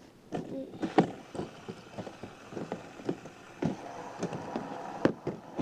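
Irregular clicks and knocks of die-cast toy cars and plastic track pieces being handled and set up close to the phone. A faint steady hum comes in about two-thirds of the way through.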